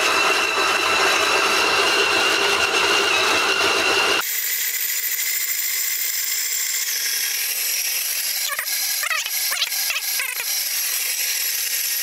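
KitchenAid stand mixer running at medium speed, its dough hook kneading sourdough dough: a steady motor whine. About four seconds in the sound changes abruptly, losing its low end and leaving a higher, thinner whine, with a few clicks near the end.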